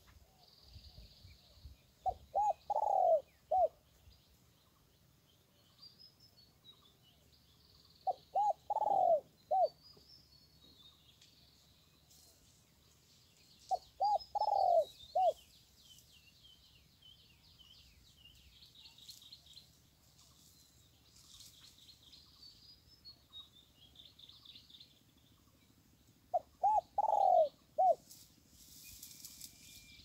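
A dove cooing: a low four-note phrase of two short notes, one long loud note and a short final note, repeated four times several seconds apart. Faint, high, twittering calls of small birds run underneath.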